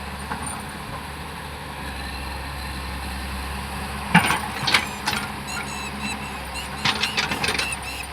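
Hyundai excavator's diesel engine running steadily, with several sharp knocks and clanks from the working machine starting about four seconds in.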